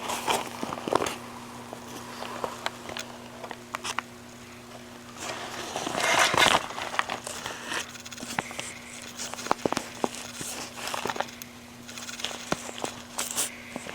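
Crinkling and crackling of a bag being handled, with scattered clicks and knocks and a louder rustle about six seconds in, over a faint steady hum.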